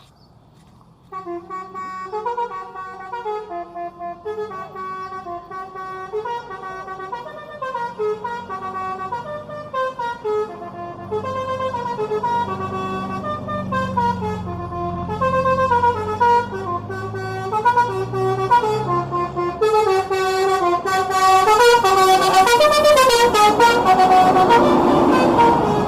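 Bus 'telolet' multi-tone musical horn playing a quick stepping melody, starting about a second in, over the low running of the bus's engine; it grows louder toward the end.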